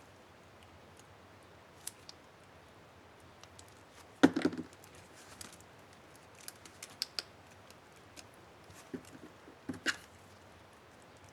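Small plastic clicks and taps from handling an HP DV4 laptop keycap and its scissor-clip retainer. The loudest cluster of clicks comes about four seconds in and another near the end, with a few scattered light ticks between.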